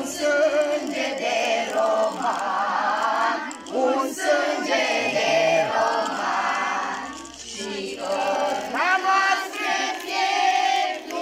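A group of children and women singing together in phrases, with a short break about seven and a half seconds in.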